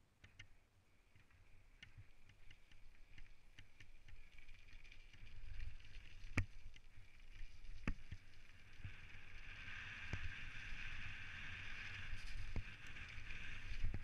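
Specialized Stumpjumper mountain bike riding down a gravel singletrack: tyres rumbling on the trail and the bike rattling, with a few sharp knocks over bumps and a buzzing whir that grows louder in the second half.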